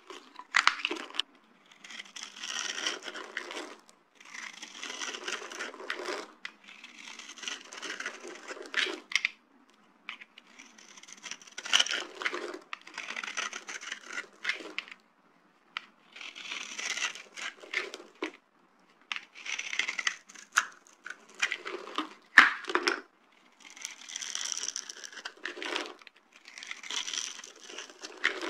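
Dry soap cubes crushed by hand, crumbling and crackling. It comes as one crush after another, each a couple of seconds of crackle with a few sharp snaps, and short pauses between them.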